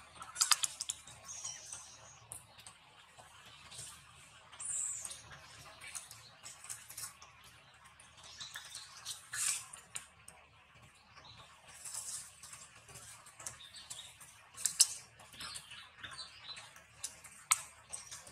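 Macaques shifting about in grass and leaf litter, making scattered rustles and sharp clicks, with occasional short high squeaks. The sharpest clicks come about half a second in and twice near the end.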